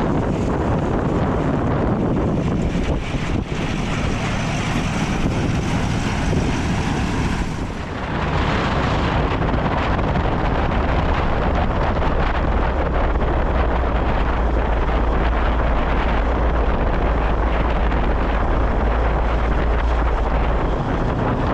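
Farm tractor running, heavily buffeted by wind on the microphone; the sound changes abruptly about eight seconds in, and a deep steady rumble comes in from about twelve seconds.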